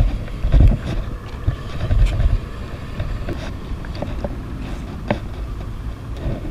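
Wind buffeting the microphone in low gusts over the first couple of seconds, then a steadier rush. A few light clicks come from the spinning reel and rod being handled.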